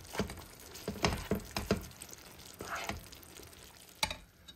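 Spatula scraping and stirring beef chunks in a frying pan with a little hot liquid, irregular wet scrapes against the pan as the browned bits are worked off the sides (deglazing). The sound stops about four seconds in.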